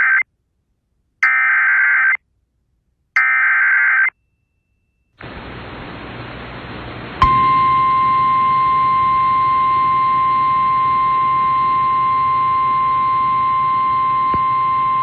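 Short bursts of buzzy SAME digital data tones, about a second apart, the end-of-message code closing an emergency alert broadcast. Then radio hiss, and about seven seconds in a steady, single-pitch NOAA Weather Radio 1050 Hz warning alarm tone starts and holds.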